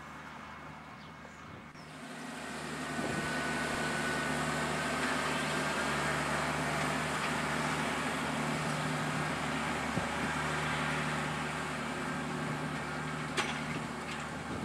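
Fendt 820 Vario tractor running steadily while pulling a Jako slurry tanker and Veenhuis injector that is injecting slurry into grassland. Quieter at first, then louder and steady from about two seconds in, with two short knocks near the end.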